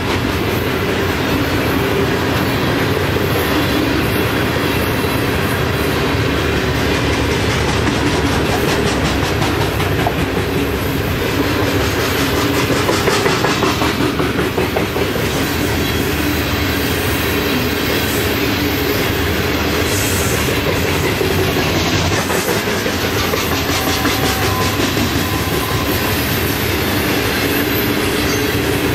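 Loaded rock-ballast hopper cars of a freight train rolling past: a loud, steady rumble of steel wheels on rail with a running clickety-clack as the wheels cross the rail joints.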